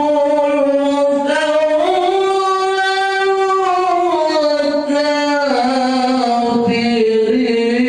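A man chanting a melodic Islamic recitation into a microphone, in long held notes that climb about two seconds in, then step down again in the second half.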